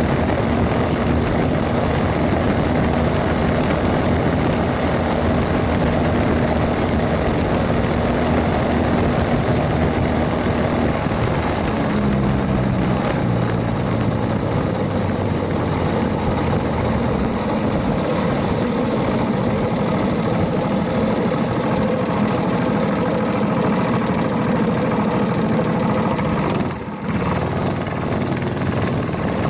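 Mini bike's Predator 212 single-cylinder four-stroke engine running steadily. Its note shifts to a lower pitch about twelve seconds in, and there is a brief dip in level near the end.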